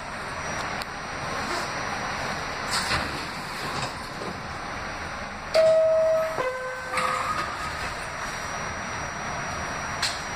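Inside an R68A subway car: the steady rumble and hiss of the car, with a loud two-tone door chime about halfway through, a higher tone followed by a lower one, and a few sharp knocks from the doors.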